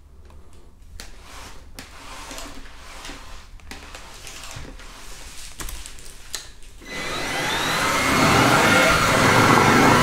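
Xiaomi G11 cordless stick vacuum with its powered carpet brush: a low sound with scattered clicks, then about seven seconds in the motor surges up with a rising whine and keeps running at high power.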